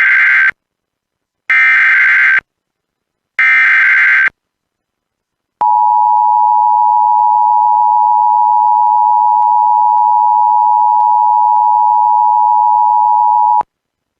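Emergency Alert System broadcast: three bursts of the SAME digital data header, about a second each, then the two-tone attention signal held steady for about eight seconds and cut off suddenly. It opens a National Weather Service tornado warning.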